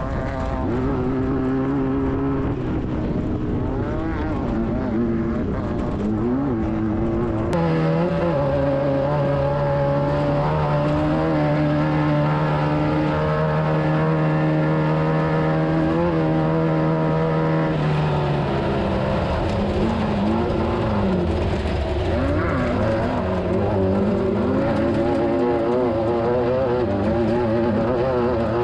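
Class 9 VW buggy's air-cooled engine running at racing speed. The engine note rises and falls with throttle and gear changes, holds steady at high revs for about ten seconds through the middle, then rises and falls again toward the end.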